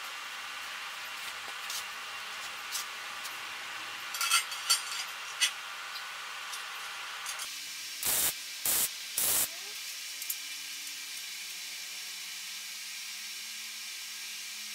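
Arc welding on steel tube: a steady sizzling hiss with scattered crackles, and three short, loud bursts of tack welds about eight seconds in.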